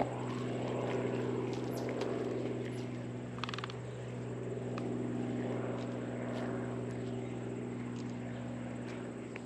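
Steady droning hum of an aircraft's engine and propeller passing over, easing slightly near the end.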